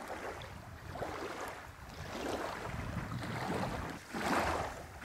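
Wind buffeting the microphone, with small waves lapping at the sandy shore. The noise swells several times, most strongly about four seconds in.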